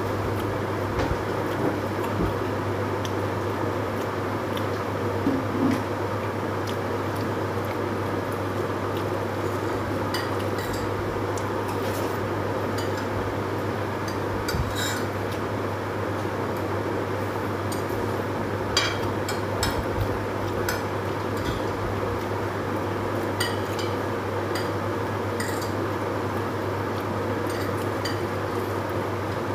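Eating by hand from a plate: fingers gathering rice and scraping the dish, with scattered small clinks and taps. A steady low hum runs underneath.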